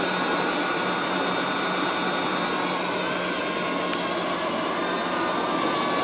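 Liectroux B6009 robot vacuum cleaner running as it cleans a rug and picks up pet fur: a steady whirring with a constant low hum.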